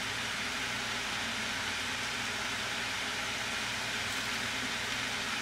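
Steady, even hiss of spaghetti squash and vegetables sizzling gently in a pan on the stove, with a faint low hum underneath.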